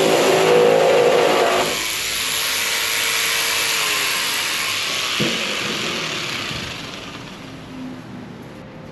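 Ridgid jigsaw running and cutting through a hardboard template sheet for the first couple of seconds, then running free off the board and winding down with a falling pitch after the trigger is released. A single knock about five seconds in.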